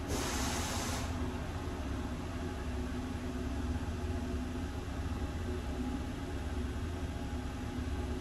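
Interior running noise of the RBDe 4/4 I 222 electric railcar under way: a steady low rumble with a faint steady hum. A short burst of hiss sounds in the first second.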